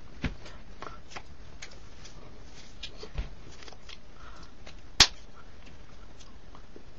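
Scattered small clicks and taps over a steady hiss, with a soft thump near the start and again about three seconds in, and one much louder sharp snap about five seconds in.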